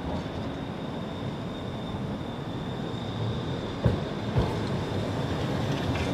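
Low-floor articulated tram running toward and past the listener on curved track, its rumble slowly growing louder, with two short knocks from the wheels on the rails about four seconds in.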